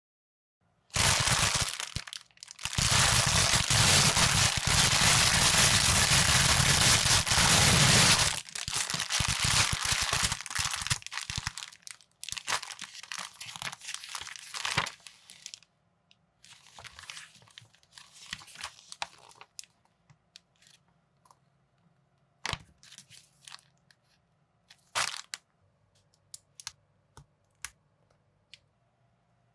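Plastic packaging torn open and crinkled for several seconds, tapering off into scattered rustling, then sparse sharp clicks and knocks of small plastic building pieces being handled.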